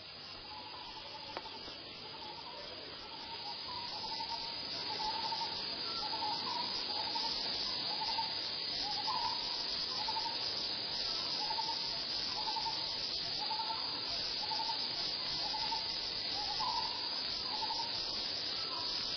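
Forest ambience of a steady insect chorus, with a short repeated call nearly twice a second. It grows louder a few seconds in.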